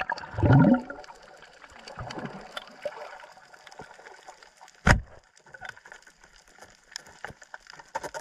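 Underwater sound recorded on a reef: a loud bubbly gurgle in the first second and a smaller one about two seconds in, over a steady faint hiss with scattered small crackling clicks, and one sharp knock about five seconds in.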